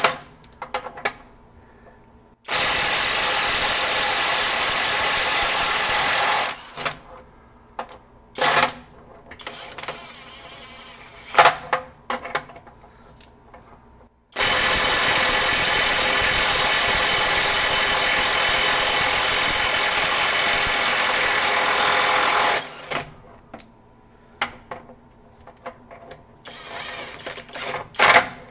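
Kobalt KIW 124B-03 24V brushless half-inch mid-torque impact wrench hammering in reverse to break loose nuts torqued to 900 and then 1,000 ft-lbs. The first run lasts about four seconds and the second, on the 1,000 ft-lb nut, about eight seconds. Each starts abruptly, with small knocks and clicks between them.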